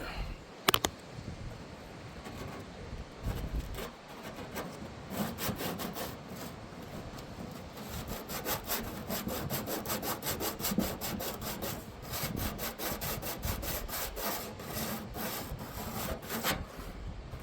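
Hand sanding of the rusty sheet-metal evaporator cover from a refrigerator: quick back-and-forth scraping strokes, taking the rust off before a coating goes on. A sharp knock sounds just after the start.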